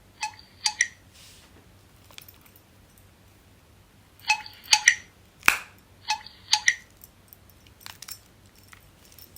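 Mini flip phone keypad being pressed: short electronic key beeps in quick clusters, with plastic key clicks and one sharper click about halfway through.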